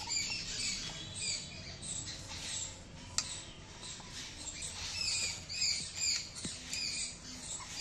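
Small birds chirping, many short high chirps repeating without a break, with one sharp click about three seconds in.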